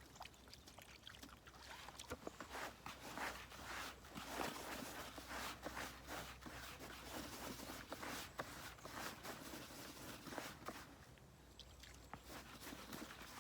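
Hands working groundbait and its bag: irregular rustling and scraping with small knocks, faint throughout.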